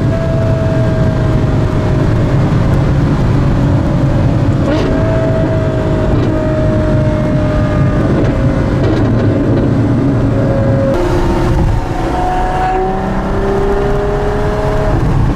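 Ferrari F12berlinetta's V12 through a Novitec sports exhaust, heard from inside the cabin at motorway speed. The engine note changes pitch about five seconds in and again near eleven seconds, over a steady low road rumble.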